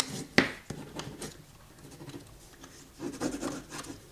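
Folded cardstock being handled and its creases pressed down: a few sharp taps and scraping rustles in the first second and a half, then quieter handling noise.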